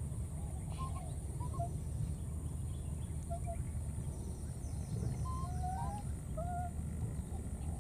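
Scattered short, high squeaky animal calls, a dozen or so, over a steady low rumble.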